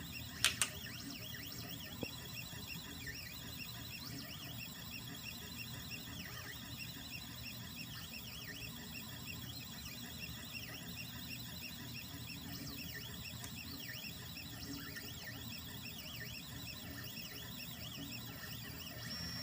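Cobblebot 3D printer running, its stepper motors singing in quickly shifting tones as the print head moves, over a steady low hum. Two sharp clicks come about half a second in.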